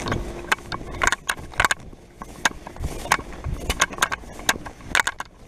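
Irregular sharp clicks and scuffs, several a second, over a faint steady hum from a running outdoor heat pump unit.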